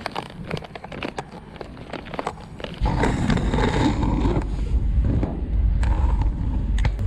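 A plastic bag of cat litter and a can being handled, crinkling and clicking. About three seconds in, a loud low rumble sets in suddenly and keeps on.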